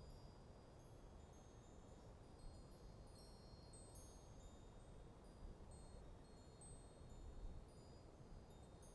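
Wind chimes tinkling faintly, many short high notes ringing at irregular moments and overlapping, over a steady low rumble of breeze.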